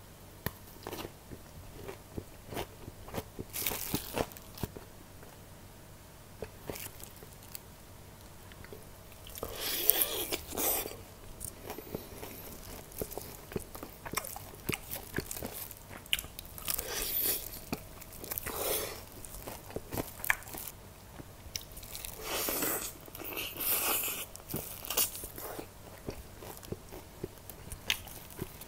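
Close-miked chewing and crunching of fried chicken and pickled radish cubes, with loud crunchy bites every few seconds and quieter wet chewing in between.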